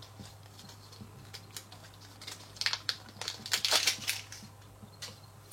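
Packaging rustling and crinkling in short bursts while items are taken out of a box, loudest between about two and a half and four seconds in.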